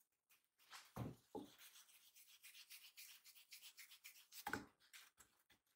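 Hands pressing and flattening a flour-dusted ball of dough on a wooden board: soft thumps about a second in and again near the end, with a light rubbing of palms and dough on the floured wood in between.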